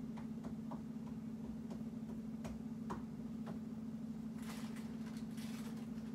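Items being handled in an open refrigerator: scattered light clicks and knocks, turning into a denser patch of rustling and clicking about four seconds in, over a steady low hum.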